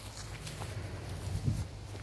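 Rustling footsteps in dry grass over a low steady hum, with a single dull thump about one and a half seconds in.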